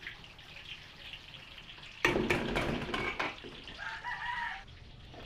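Rooster crowing once, starting suddenly about two seconds in and ending in a drawn-out, slightly wavering held note.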